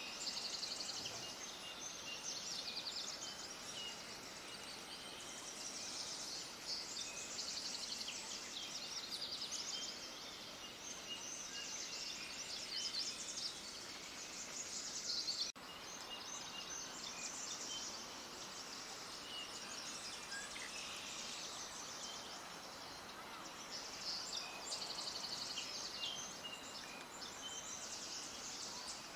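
Many small birds chirping and twittering at once, a dense run of high, quick chirps over a faint hiss, with a brief break about halfway through.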